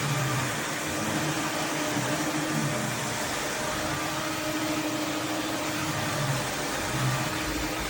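Roborock F25 ACE cordless wet-dry vacuum mop running, a steady whir with a hum.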